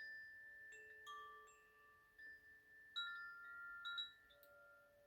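Koshi chimes ringing softly: clusters of bright, clear bell-like notes from the tuned rods, struck afresh about every second, each ringing on and slowly fading into the next.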